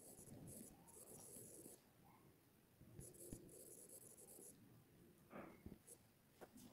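Near silence with faint scratching and light taps of a stylus writing on a touchscreen, in two short stretches.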